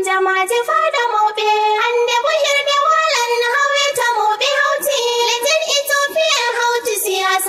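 A high-pitched voice singing a melody unaccompanied, with no beat or bass underneath.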